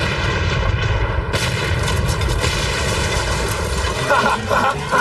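Cartoon explosion sound effect: a continuous rumbling blast that lasts about four seconds, with music held over it. It eases off near the end.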